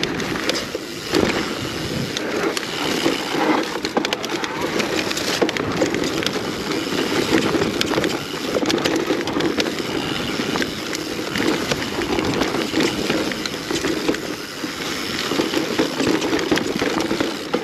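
Mountain bike descending a rough, technical trail of roots and rocks: constant tyre noise over dirt, with a steady rattle of chain and frame and many sharp knocks as the wheels hit roots and stones.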